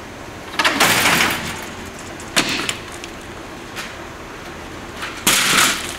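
Plastic electronics and cardboard boxes being tossed and shifted on a scrap pile: a longer clattering crash about a second in, a short knock after two seconds, and another crash near the end.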